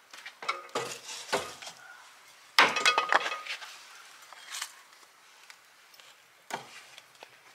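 Firewood knocking and clanking against a 55-gallon steel drum stove as it is loaded into the firebox: several sharp knocks in the first two seconds, a loud metallic clatter with a brief ring about two and a half seconds in, and one more knock near the end.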